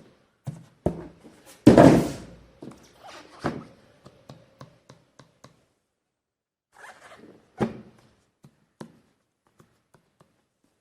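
Handling noises from unboxing: irregular rustling, clicks and thunks of packaging and parts being moved. The loudest is a rustling burst about two seconds in, then a pause of a couple of seconds before more rustling and a knock.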